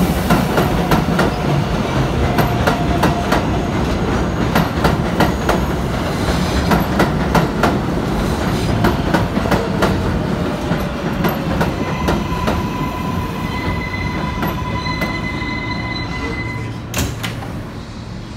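A New York 7-line subway train of R188 cars rolls past on the elevated track, its wheels clacking over the rail joints. In the later part a thin, steady wheel squeal comes in, and the train gets quieter near the end.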